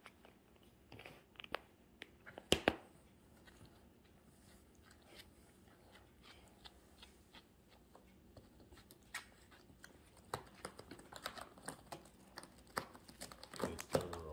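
Cat biting and licking a fabric pillow toy: faint scattered clicks and small crinkles, with two sharper clicks about two and a half seconds in, growing busier near the end.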